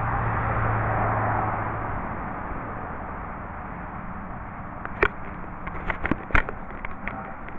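Distant engine drone of a roadside mowing machine, a steady low hum that fades about two seconds in. A few sharp clicks follow from about five seconds in.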